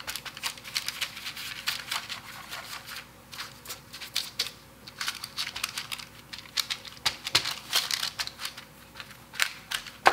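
Parchment paper crinkling and rustling under hands pressing logs of cookie dough flat on a baking sheet: irregular small crackles with short quieter gaps.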